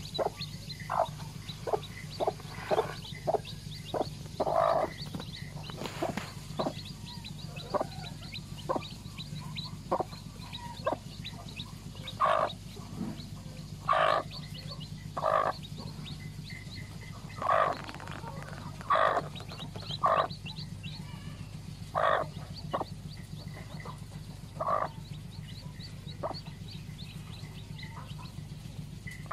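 Mother hen clucking in short, irregular calls about once a second, a few of them longer and louder, with faint high peeps from her newly hatched chicks. A steady low hum runs underneath.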